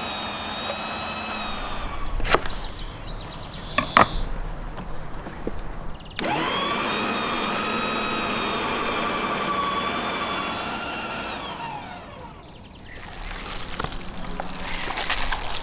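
Kenwood electric meat grinder's motor running with a steady whine as it minces meat and herbs, with a couple of sharp knocks. About six seconds in it starts up suddenly, runs steadily, then is switched off and winds down with a falling whine. A rising noise follows near the end.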